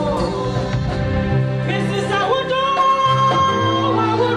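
Live gospel music: a woman singing long, gliding held notes over sustained instrumental chords and a bass line.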